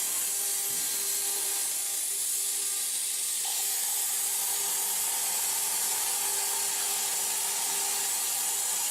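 CNC plasma cutter cutting metal: a steady hiss from the plasma torch's arc and air jet, with a faint steady hum under it and a higher tone joining about three and a half seconds in.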